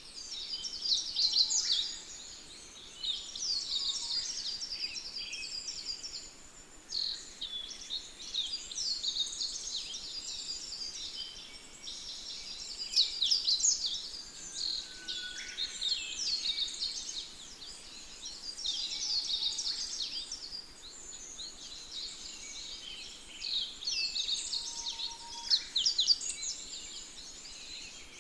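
Small birds chirping in quick runs of high-pitched notes. The runs come in bursts a second or two long every few seconds, with a few faint single whistles in between.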